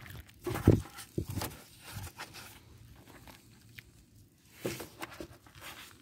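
Wet, soapy sponge scrubbing the foam-covered plastic body panels of a scooter, in irregular rubbing strokes with a pause in the middle.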